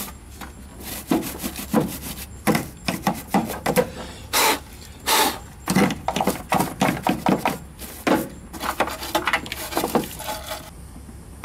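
Stiff-bristled hand brush scrubbing caked dirt and debris off the plastic top of a fuel pump module: quick, irregular back-and-forth scrubbing strokes in short bursts.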